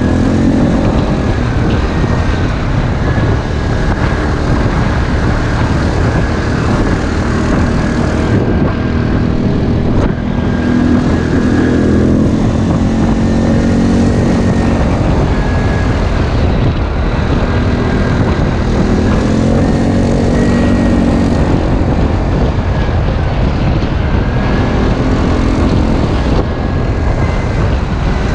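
ATV engines running hard off-road, the engine note rising and falling every few seconds as the throttle is opened and eased.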